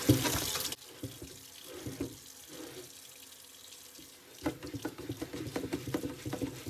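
A kitchen tap runs into the sink and is shut off under a second in. About four seconds in, quick repeated scrubbing strokes begin on a soapy pan.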